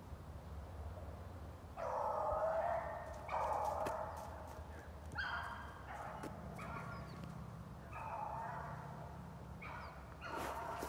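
Beagle baying while running a rabbit's track: a string of about six drawn-out bays, each roughly a second long, the loudest ones about two to four seconds in.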